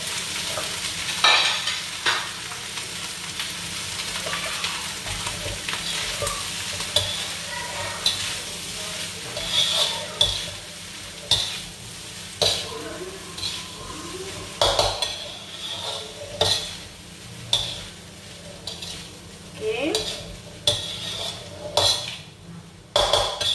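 Fried rice sizzling in a wok while a metal spatula stirs and tosses it, scraping and clanking against the pan about once a second.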